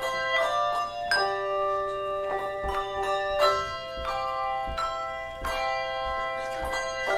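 Handbell choir playing a piece: bells struck about once or twice a second, sounding chords, each note ringing on under the next strikes.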